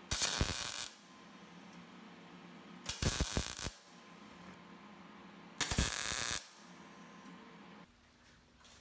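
MIG welder laying three tack welds on a mild-steel bracket: three short bursts of arc, each under a second, about two and a half seconds apart.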